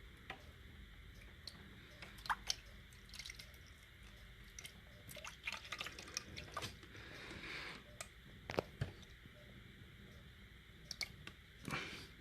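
Water dripping and trickling into a reptile's water dish, quiet, with scattered light clicks and knocks from handling things in the terrarium.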